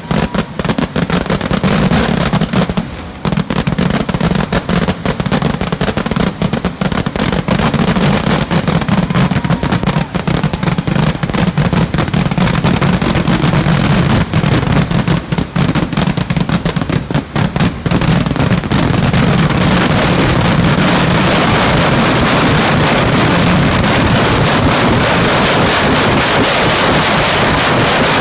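Festival fireworks barrage: a dense, rapid string of firecracker blasts, the bursts coming so fast that about two-thirds of the way in they merge into one continuous crackling din.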